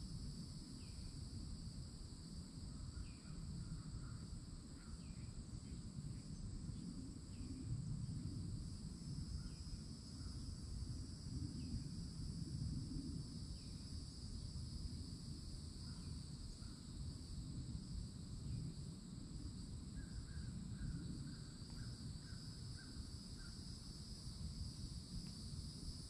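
A steady, high insect drone of cicadas and other summer insects, over a low rumble. Scattered short bird chirps sound through it, and a bird gives a quick run of about seven calls near the end.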